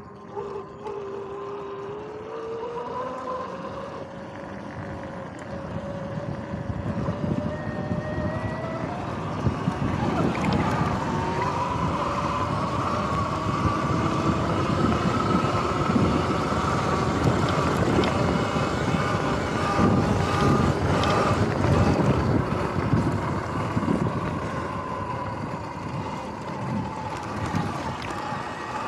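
Sur-Ron X electric dirt bike riding at speed: the electric motor's whine glides up and down in pitch with speed, over wind rushing on the microphone and rattles and knocks from the bike going over bumpy grass. It gets louder as the bike picks up speed about ten seconds in.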